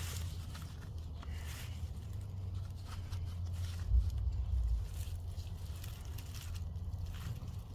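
Rustling and scraping of hands working through sweet potato vines and soil in a grow bag, over a steady low rumble, with one dull thump about four seconds in.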